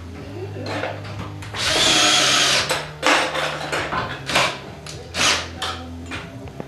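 Cordless drill working at the vertical steel track of a sectional garage door: one run of about a second, then several short bursts.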